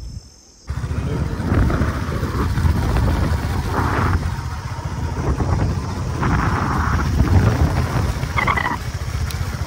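Wind buffeting the microphone on a moving motorcycle, with the motorcycle's engine running underneath. It starts abruptly about a second in and stays as a loud, steady, rough rumble.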